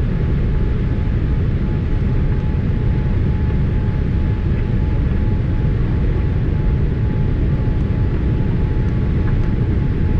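Steady cabin noise inside a Boeing 787 airliner: an even, deep rumble of engines and airflow, with a faint steady whine above it.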